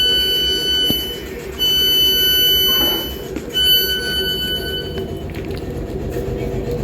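Train door-closing warning: three long, steady electronic beeps, each about a second and a half, over the steady hum of a standing Class 455 electric train.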